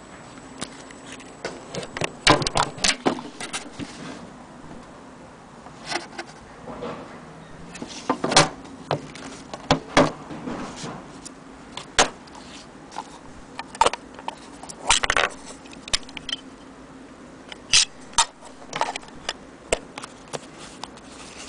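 Olympia SM3 Deluxe manual typewriter being handled and worked: irregular metallic clicks and clacks, one at a time or in short clusters, with pauses between.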